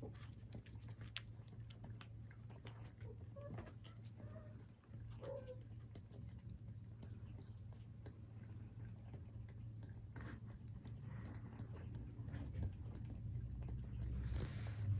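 A cat lapping water at a pet water fountain: a long run of quick, faint, irregular licking clicks over a low steady hum.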